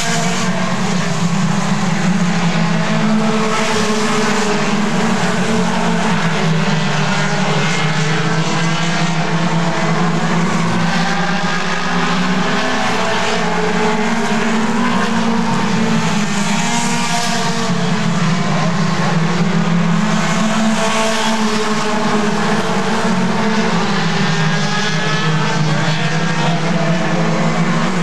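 A field of mini stock race cars running at speed, several engines overlapping continuously with pitches rising and falling as the cars pass and go through the turns.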